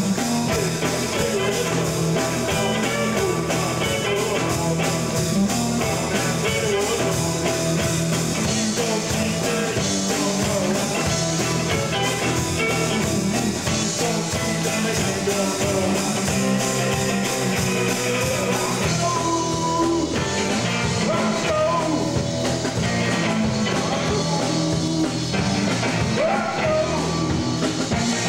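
Rock band playing: electric guitars, bass and drum kit, with singing. The sound grows duller about two-thirds of the way through.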